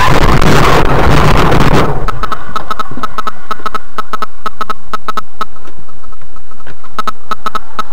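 Car tyres skidding and scraping as the car spins off the road, stopping suddenly about two seconds in. After that come irregular clicks over a faint, evenly pulsing tone.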